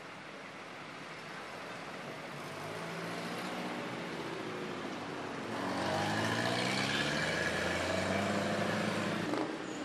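Vehicle engines working on a steep uphill hairpin. An engine grows louder about halfway through and holds there, its pitch wavering up and down.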